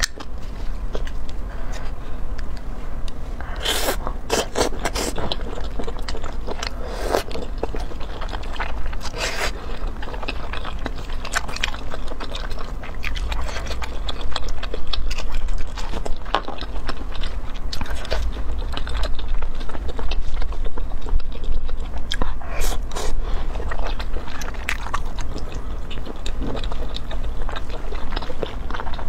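Close-miked eating of spicy braised abalone and thick fried rice noodles: wet chewing and biting, with utensils scraping on the shells and dishes. Dense clusters of sharp clicks come about four seconds in and again a little over twenty seconds in.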